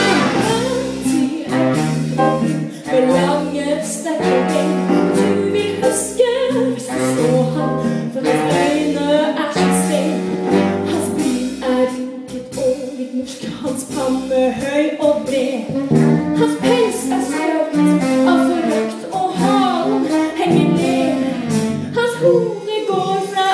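Live band playing a musical-theatre song with singers, over a steady beat.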